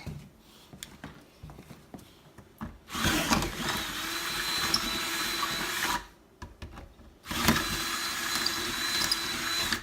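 Power drill running twice for about three seconds each, with a steady whine, boring out a patio door handle's mounting holes a little wider so they fit over the posts.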